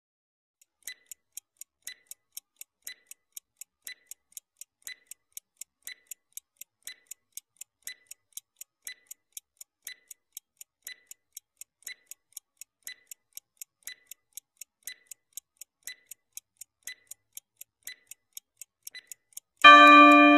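Stopwatch countdown timer sound effect ticking about twice a second, the ticks alternating stronger and weaker like a tick-tock. Near the end a loud, steady pitched tone sounds: the signal that the answer time is up.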